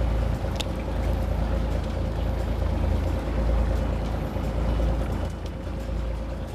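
Fishing boat's engine running steadily: a low rumble with a faint steady hum over it.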